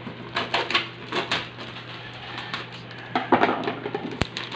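Thin clear plastic bag crinkling and rustling in irregular crackles as hands dig through the plastic packets inside it, with a sharp click about four seconds in.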